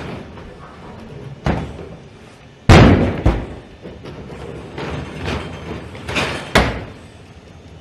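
Heavy clunks and bangs from the Boston Dynamics Atlas humanoid robot moving and jumping on metal scaffolding. There is one knock about a second and a half in, the loudest bang a little later followed by a second one, and two more sharp knocks after six seconds.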